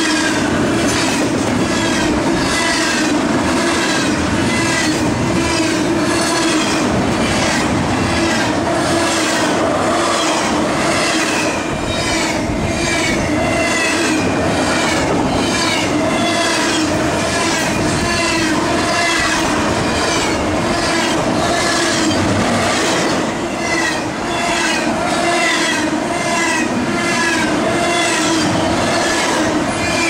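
BNSF locomotive's air horn blowing at length, heard through a double-stack intermodal train rolling past close by, so that it pulses in and out about one and a half times a second as the gaps between the container cars go by. Under it the clatter of the railcars' wheels on the rails.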